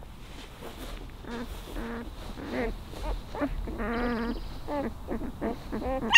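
Five-day-old German Shepherd puppies whimpering and squeaking in a pile: a string of short, high little cries, one drawn out about four seconds in, and a sharper, louder squeal right at the end.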